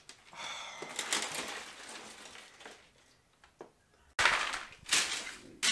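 Paper and cardboard packing rustling as a glass shelf is worked out of its upright box, then about four seconds in a sudden loud crash as an IKEA Detolf glass shelf slides down inside the box and shatters.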